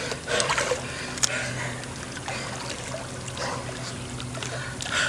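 Pool water lapping and trickling around a swimmer standing at the edge of the pool, with small splashes as he moves.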